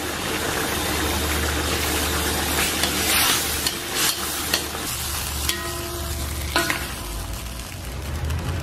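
Beef and sauce bubbling and sizzling in a hot wok while a thin cornstarch slurry is stirred in to thicken it, with a few knocks of the spatula against the wok.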